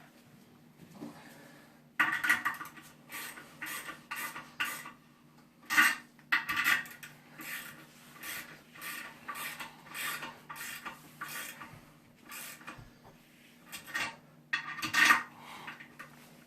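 Porcelain toilet tank being fitted onto the bowl: hard clinks and scrapes of porcelain and metal tank bolts as the bolts are worked into the bowl's holes, starting about two seconds in and coming irregularly, with the sharpest knocks near the middle and near the end.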